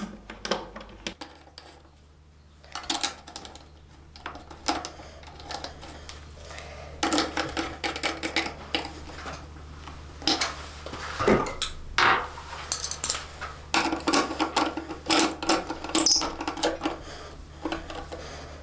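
Hand tools working a seat-lock bolt on a motorcycle's metal subframe: a Phillips screwdriver and then a driver turning the bolt in, giving an irregular run of small metallic clicks, scrapes and rattles.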